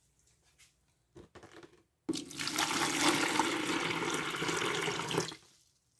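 Water poured into a plastic bucket, splashing onto the water already in it. It starts about two seconds in, runs steadily for about three seconds and stops abruptly. A few light handling clicks come before it.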